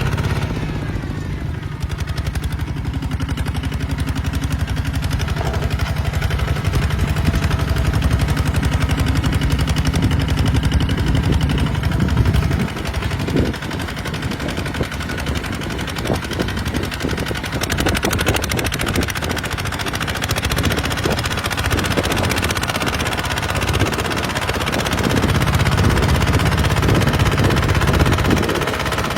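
Kubota RT140 horizontal single-cylinder diesel engine running under load while plowing, with a rapid, rattling exhaust beat. It eases slightly about halfway through and picks up again near the end.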